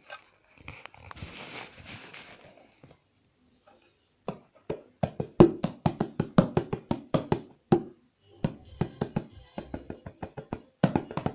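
Hand percussion: a drum struck with the hands in a quick run of sharp strokes, about four a second. The strokes pause briefly, then go on more softly, with a louder cluster near the end. A rustling, shaking noise comes before the strokes, in the first three seconds.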